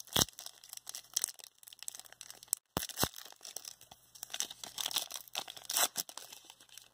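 Foil wrapper of a Panini Prizm basketball trading card pack being torn open by hand: a run of crinkling, tearing crackles with a few sharp clicks, two of them close together about three seconds in.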